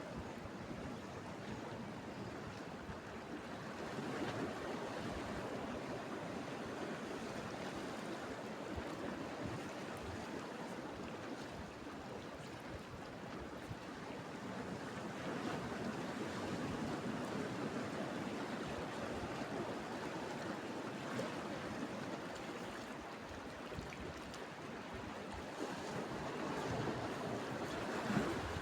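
Sea waves washing in on the shore, the sound swelling and ebbing in slow surges.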